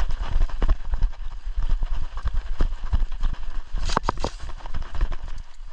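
A player running hard: rapid, irregular thuds of footsteps with gear jostling, and a few sharper clicks about four seconds in.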